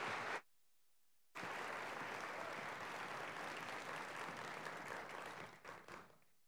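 Audience applauding. The applause cuts out for about a second shortly after the start, comes back, then thins out and dies away near the end.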